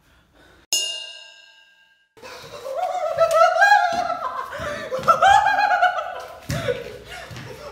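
A single struck ringing tone that dies away over about a second, then a man laughing loudly in a high voice for several seconds.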